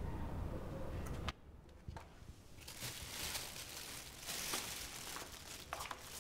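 A low steady rumble cuts off about a second in. Then shiny foil gift wrapping on a box crinkles and rustles as the box is picked up and carried.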